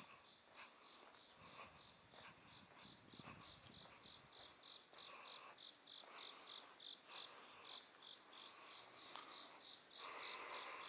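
Faint, even chirping of a cricket, about three chirps a second, over quiet night-street background. A louder wash of noise comes in near the end.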